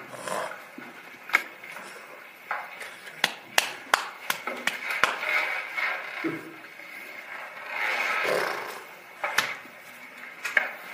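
A boy making short vocal sounds, with about a dozen irregular sharp clicks, most of them bunched between about three and five seconds in.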